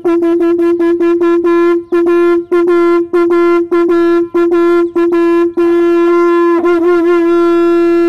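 Conch shell (shankh) blown on one loud, steady note, broken again and again by quick stops into a run of short and longer blasts, with the pitch wavering briefly near the end.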